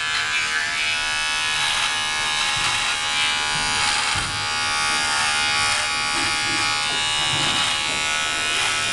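Electric beard trimmer buzzing steadily as it is run over the upper lip, cutting moustache hair.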